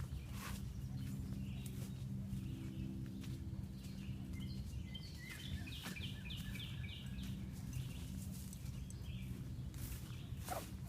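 Footsteps on a woodland trail with scattered clicks and crunches, over a steady low hum. A bird sings a quick run of repeated notes about five seconds in.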